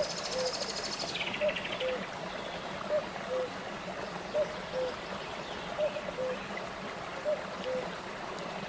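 Shallow stream running steadily over small rock cascades. A low two-note call repeats about every one and a half seconds, and a high buzzy trill falls in pitch over the first two seconds.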